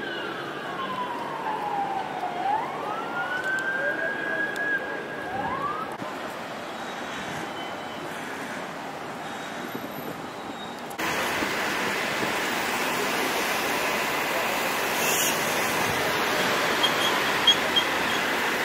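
An emergency-vehicle siren wailing, its pitch falling slowly and then sweeping quickly back up, fading out about six seconds in. About eleven seconds in, steady multi-lane city road traffic noise starts abruptly.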